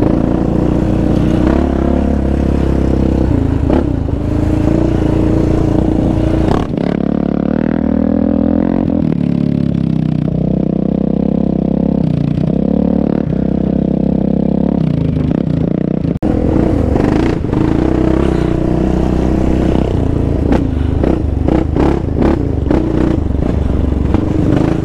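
Sport quad's single-cylinder engine running steadily under way on a rough dirt trail, with clattering and knocks from the machine over bumps and rocks near the end.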